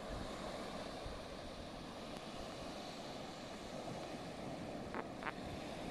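Steady outdoor background hiss with wind buffeting the microphone in low rumbles, and two brief high chirps about five seconds in.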